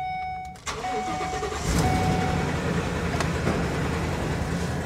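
Ford F-450 FedEx truck's flex-fuel gasoline engine cranking and catching about a second and a half in, then idling steadily. A dashboard warning chime sounds over the start.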